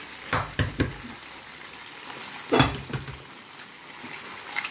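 Meatball tagine in tomato sauce simmering in a stainless steel pan: a steady soft hiss, broken by a few light knocks, the loudest about two and a half seconds in.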